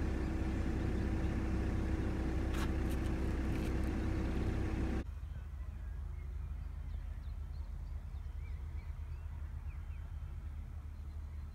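Outdoor background: a steady low rumble with a constant hum, which cuts off suddenly about five seconds in. After that a quieter steady background remains, with faint bird chirps.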